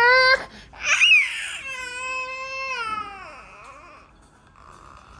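Young child crying: a short wail, a sharp rising-and-falling cry about a second in, then a longer wail sliding down in pitch that trails off into quieter sobbing.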